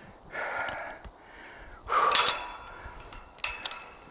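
Heavy, labored breathing of a tower climber hauling tools and a radio up the tower, with sharp metallic clinks about two and three and a half seconds in as a safety-lanyard hook is clipped onto the tower steel.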